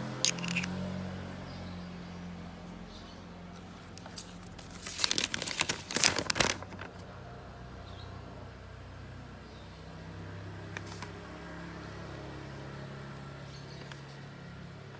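Handling noise: a sharp click near the start, then about five seconds in a loud two-second burst of crinkling and clicking, like packaging or the item being handled close to the microphone, over a low steady hum.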